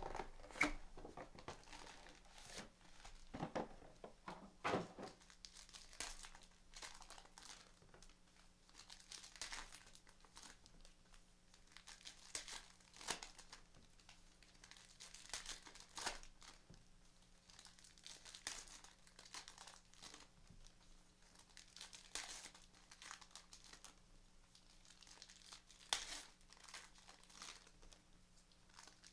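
Plastic wrappers of 2017 Diamond Kings baseball card packs being torn open and crinkled, with the cards rustling as they are handled, in irregular bursts of crackle. A faint steady low hum runs underneath.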